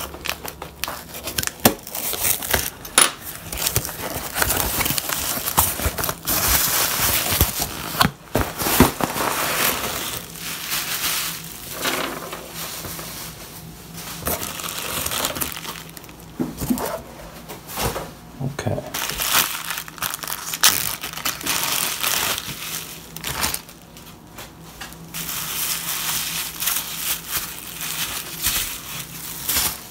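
A taped cardboard shipping box being cut and torn open with crackling, rustling noise, then plastic bubble wrap crinkling as the contents are unwrapped near the end.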